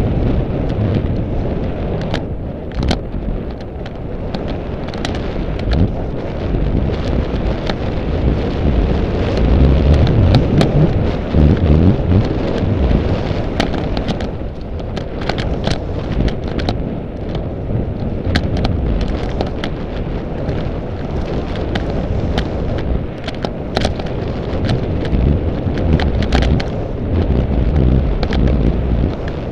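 Mountain bike descending a dirt singletrack, heard from a helmet-mounted action camera: a loud, continuous low rumble of wind buffeting the microphone and tyres on the dirt, rising and falling with speed. Frequent sharp clicks and rattles from the bike and trail run through it.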